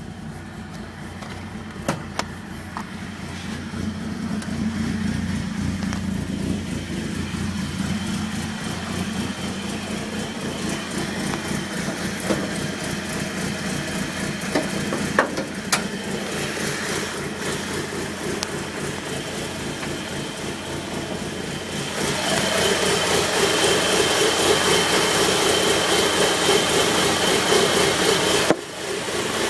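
Mitsubishi Mirage Cyborg RS's MIVEC engine idling roughly, with an uneven, lumpy beat; the owner is unsure whether this rough idle is a fault. About two-thirds of the way through it gets louder and brighter.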